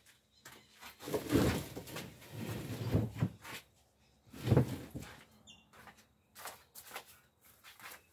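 Knocks, thumps and scraping of a freestanding cabinet being gripped and shifted across a paved floor, the loudest thump about four and a half seconds in, followed by smaller clicks and knocks.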